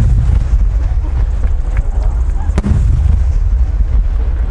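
Large aerial firework shells bursting overhead: a heavy, continuous deep rumble of booms and their echoes, with one sharp crack about two and a half seconds in.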